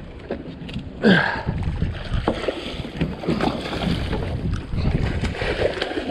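A small boat on open water: wind on the microphone and water against the hull over a steady low rumble, with scattered knocks and a brief louder burst about a second in.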